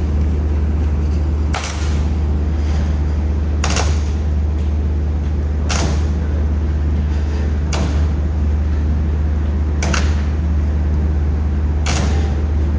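Reinforcement-cage welding machine for concrete pipes running through its cycle: a steady low electrical hum, broken about every two seconds by a short, sharp hissing crack as a weld is made, six times in all.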